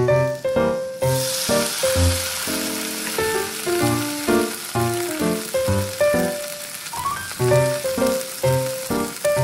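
A frying pan of sautéed urui shoots and fried tofu sizzles as the seasoning liquid goes in. The hiss starts about a second in and then carries on steadily. Melodic background music plays throughout.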